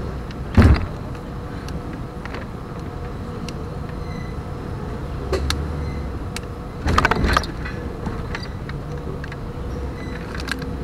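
Jeep Wrangler crawling slowly over trail rocks: a low engine rumble with scattered clicks and rattles. Two sharp knocks stand out, one just under a second in and a cluster about seven seconds in.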